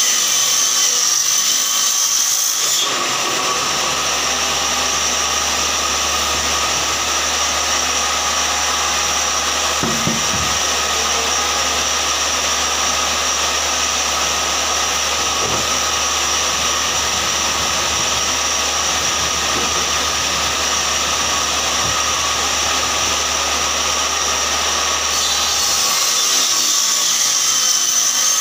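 Table saw running with a steady high whine, then cutting through a sheet of plywood from about three seconds in until near the end, when it goes back to running free.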